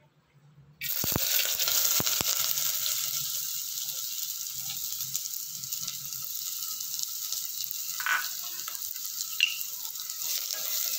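Chopped onions dropped into hot olive oil in a terracotta clay pot, starting to sizzle suddenly about a second in and then frying steadily. Two light knocks come just after the sizzle starts.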